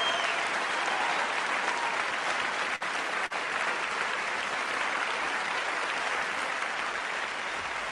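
Concert audience applauding steadily, a dense patter of many hands, cutting out twice very briefly about three seconds in.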